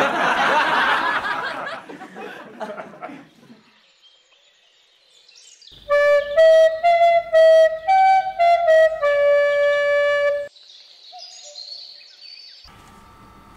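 A loud, wavering, voice-like sound fading out after about three seconds, then a short title jingle: a melody of clear single notes on a flute-like instrument, lasting about four seconds and cutting off suddenly.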